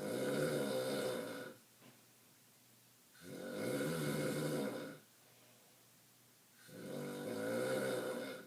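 A person snoring in slow, regular breaths: three long snores, each about a second and a half, spaced roughly three seconds apart with quiet gaps between.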